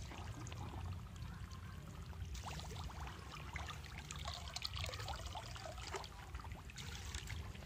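Shallow muddy pond water trickling and splashing in small irregular dabs, stirred by hands and legs groping for fish in the mud.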